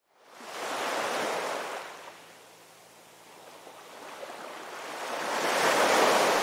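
Ocean surf: waves breaking and washing in two swells, the first about a second in, the second building louder toward the end.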